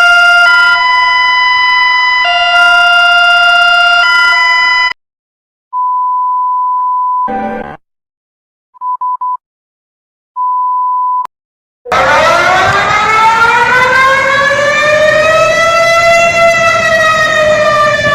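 Emergency alert alarm tones, one after another: a loud steady chord of several tones that shifts pitch a few times for about five seconds, then a single steady beep tone, a brief crackle, three quick beeps and another single beep tone. From about twelve seconds a siren tone rises in pitch and slowly falls.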